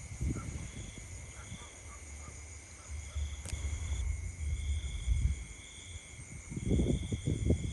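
Insects chirping in short repeated high pulses over a steady high insect drone, with a low rumble underneath and a spell of rustling near the end.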